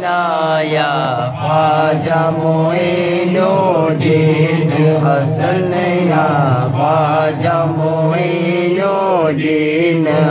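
Men singing a Sufi devotional chant into microphones, the lead voice sliding through long melodic lines over a steady low drone of voices, with no instruments.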